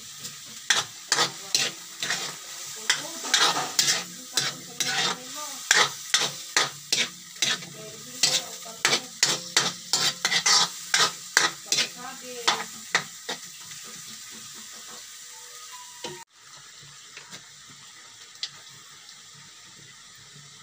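Metal ladle scraping and knocking against a steel wok, about two or three strokes a second, while pork sizzles in hot oil. The stirring stops about 13 seconds in, and the sizzling carries on steadily.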